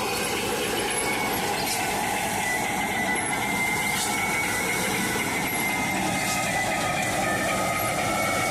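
Harvesting machine running steadily: a dense, even mechanical noise with thin high squealing tones that drift slightly in pitch.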